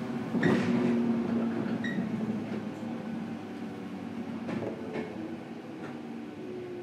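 Running sound of a 103-series electric train heard from inside the car as it slows down: a motor and gear hum, easing down in pitch and getting quieter, with a few sharp knocks from the wheels and running gear.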